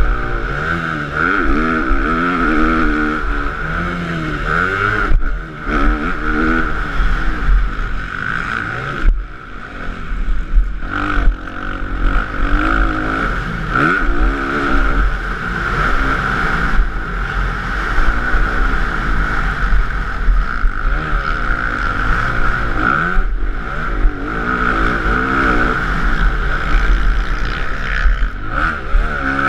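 Motocross bike engine revving hard as it races over a rough dirt track, its pitch climbing and dropping again and again through the gears, with short throttle-offs a few times, heard from a helmet-mounted camera.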